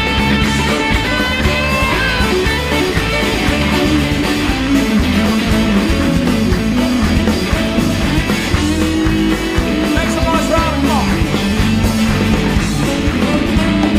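Live rock and roll band playing an instrumental break: guitar over a driving bass and drum beat, with sliding lead notes twice.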